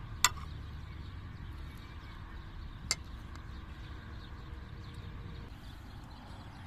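A metal spoon clicks against a plastic bowl of meatballs: one sharp click just after the start and a softer one about three seconds in, over a steady low rumble.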